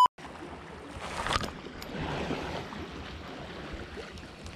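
Calm sea washing and lapping against a rocky shoreline, a steady wash of water with a few faint ticks.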